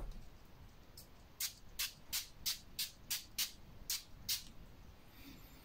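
Fine-mist pump spray bottle of face mist being sprayed in a quick series of about ten short hisses, roughly three a second, onto the face.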